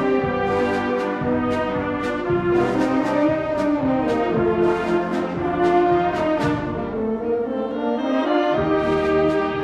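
Concert band playing, with full brass chords over regular sharp percussion strokes. The lowest parts drop out for about a second and a half near the end, then come back in.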